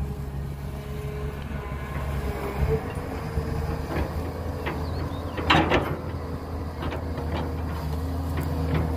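Heavy diesel machinery at work, an excavator loading a dump truck: a steady low engine hum with a wavering whine over it, and a few sharp knocks and clanks, the loudest a cluster about five and a half seconds in.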